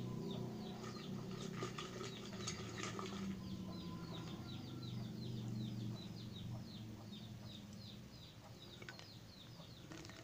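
Fish crackers rattling and clicking inside a glass jar as it is shaken, then tumbling out onto a plate near the end. Over this, a bird chirps rapidly and evenly, about six short falling chirps a second.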